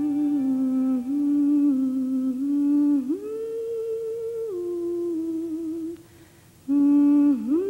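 A voice humming a slow, wordless melody in long held notes that slide from one pitch to the next, with a short break about six seconds in.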